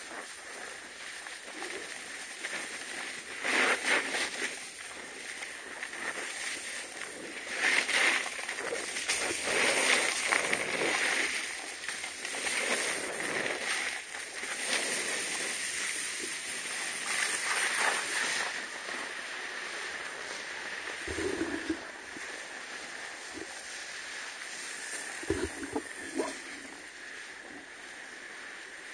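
Wind rushing over the camera microphone together with the hiss and scrape of sliding and carving down packed snow, swelling in several surges and settling lower in the last third, with a couple of brief knocks.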